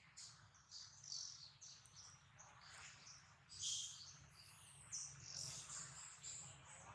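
Faint series of short, high-pitched animal chirps, with a louder, longer call about three and a half seconds in, over a faint low hum.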